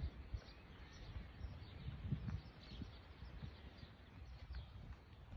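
Faint birds chirping: scattered short high chirps over quiet background noise, with a few soft low thumps.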